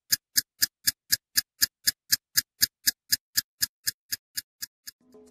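Countdown ticking sound effect: sharp, even ticks at about four a second, fading slightly and stopping near the end, as music begins to come in.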